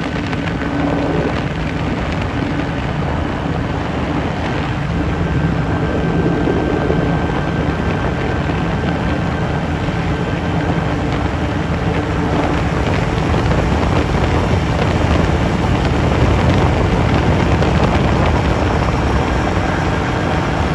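CGS Hawk ultralight aircraft's engine and propeller running steadily in flight, with heavy wind noise over the microphone.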